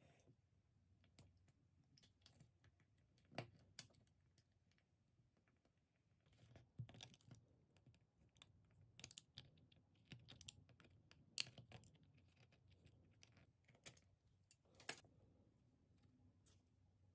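Small knife carving notches into the rim of a wooden thread spool: faint, irregular clicks and snicks of the blade cutting into the wood.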